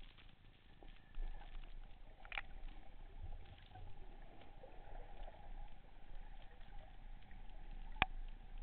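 Muffled underwater noise picked up by a camera in a waterproof housing during a breath-hold dive, with scattered small clicks and knocks from handling the speargun and housing. A single sharp click about eight seconds in is the loudest sound.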